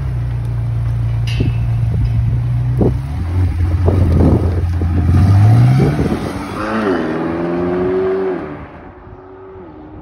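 McLaren 720S's twin-turbo V8 pulling away: a steady low drone, then revs climbing to the loudest point a little past halfway. The pitch then drops and the sound fades as the car drives off.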